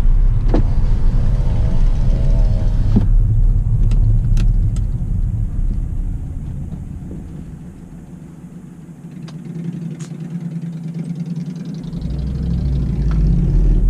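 Ford New Fiesta heard from inside the cabin while driving: a low engine and road rumble that fades away over a few seconds in the middle, then rises again about twelve seconds in as the car picks up.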